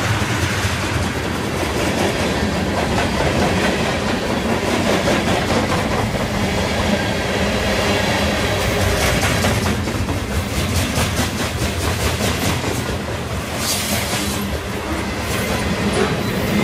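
Freight train of tank cars and flatcars rolling past at close range: a steady rumble with the wheels clattering over the rails, the clicking sharper in the second half.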